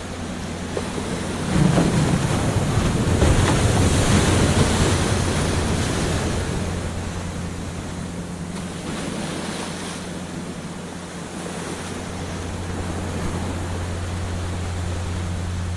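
Ocean surf on a sandy beach: a wave breaks about a second and a half in, its wash fades away, and the next swell builds near the end. A low wind rumble on the microphone sits underneath.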